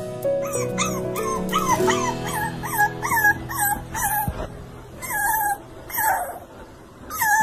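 Puppy whimpering in a quick series of short, high cries, each rising and then falling, over background music that stops about four seconds in.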